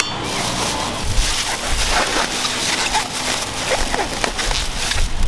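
Thin plastic takeout bag crinkling and rustling as it is packed with vegetables and twisted shut by hand, in a series of quick crackles. A low rumble sits underneath from about a second in, and faint voices are in the background.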